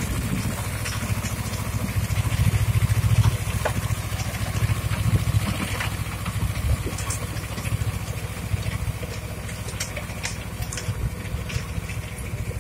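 Sonalika 30 hp mini tractor's diesel engine running steadily under load as it pulls a rotavator through a flooded paddy field, puddling the mud. A low, fast-pulsing rumble that grows a little fainter toward the end as the tractor moves away.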